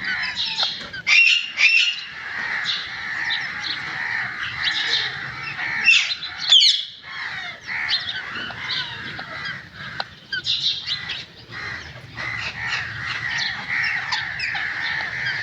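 Green ringneck parrot squawking and chattering among steady high-pitched chirping, with two loud shrill screeches: one a little over a second in and one around six and a half seconds in.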